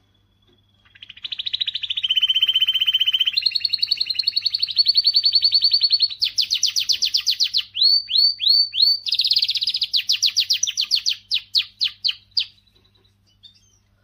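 Domestic canary singing one long song phrase of fast trills, switching between several trill types, with a short run of four downward-sweeping notes in the middle. The song starts about a second in and stops shortly before the end.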